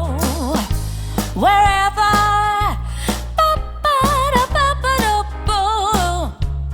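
Background pop song: a singer's voice over a steady bass and drum beat.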